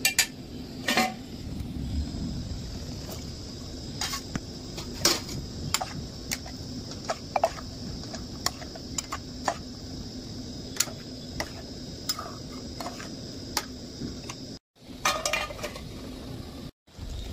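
A metal spatula clinking and scraping against an aluminium cooking pot while a pea and potato curry is stirred, in short irregular knocks over a steady low hum and faint hiss. Near the end a steel lid clatters against the pot.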